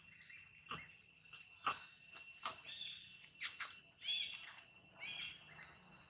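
Insects drone steadily at a high pitch under scattered clicks and rustles in dry leaf litter. Two short chirping calls come about four and five seconds in.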